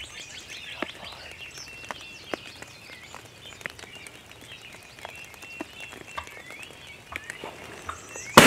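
Songbirds chirping over quiet woodland background, with scattered faint clicks. A sudden loud burst of noise right at the end.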